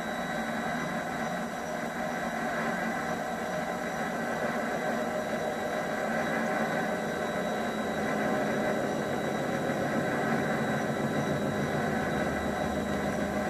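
MX-210V mini lathe running steadily, its chuck spinning: an even motor and gear hum with a steady whine, a little louder in the second half.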